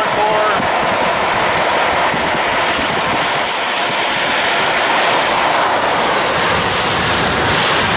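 Heavy rain and wind on a moving car, a loud, steady rush heard from inside the cabin, mixed with tyre noise on wet road.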